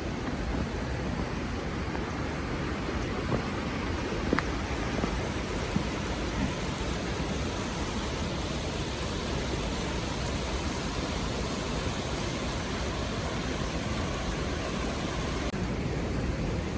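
Steady outdoor rushing noise, even and unbroken, with a few faint short clicks early on.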